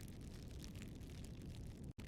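Campfire burning quietly: a faint, steady low rumble with scattered small crackles and pops of burning wood. The sound cuts out for an instant near the end.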